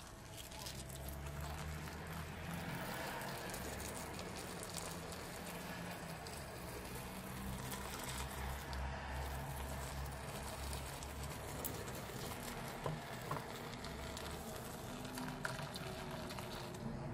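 Clear liquid poured in a steady thin stream onto foam and glitter in a bowl, with a continuous fine pattering and fizzing as the foam takes it in.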